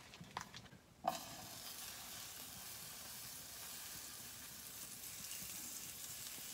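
A spoon clicks a few times against a bowl of pancake batter. About a second in, a steady sizzle starts suddenly: pancake batter frying in a nonstick pan on a small wood stove.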